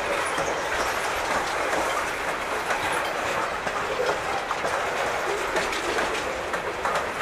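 Freight train tank cars rolling past at close range: steel wheels running on the rail with a steady rush of noise and a clickety-clack of wheels over rail joints.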